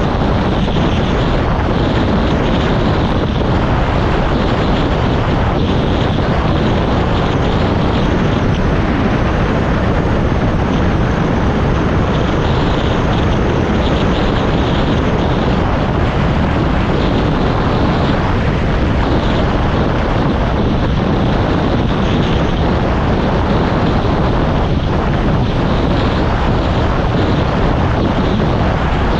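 A vehicle in motion, heard as a loud, steady, unbroken rush of engine and road noise, with wind buffeting the microphone.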